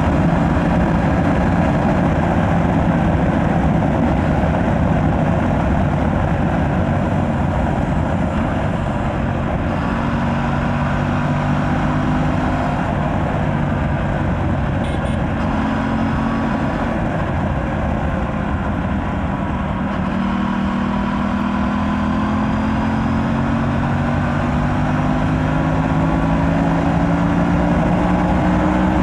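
Aprilia RS 457's 457 cc parallel-twin engine running on its stock exhaust while riding, the note changing several times and then climbing slowly near the end, over a steady rushing noise.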